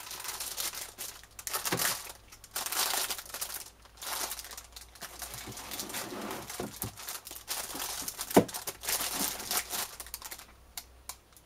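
Clear plastic bags around model-kit hull pieces crinkling and rustling in repeated bursts as they are handled, with one sharp knock about eight seconds in, the loudest sound. Near the end the rustling stops, leaving a few light clicks.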